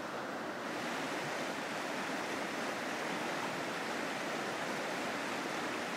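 The Nantahala River running shallow over rocks and riffles: a steady rushing of water, a little hissier from about a second in.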